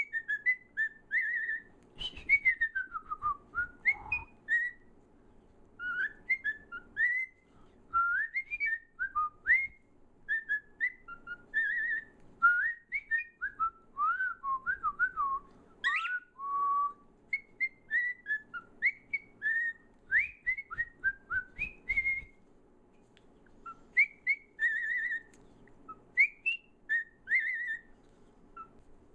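A bird whistling a long run of short, quick notes that swoop up and down in pitch, broken by a couple of short pauses.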